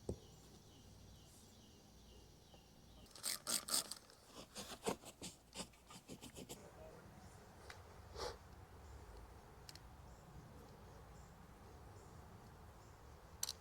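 Small scattered clicks and light taps of hand work taking the screws out of a plastic camera plug housing: a quick cluster about three seconds in, a looser run of clicks after it, and one more click near the middle, with quiet between.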